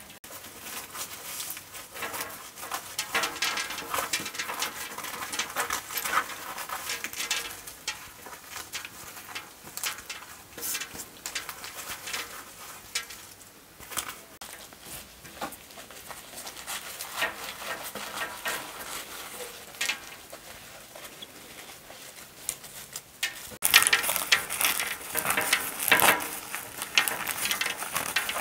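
Sunflower seeds being rubbed and picked by hand out of dried sunflower heads: a dense, irregular crackling rustle with seeds pattering onto a cloth-covered table. It grows louder for the last few seconds.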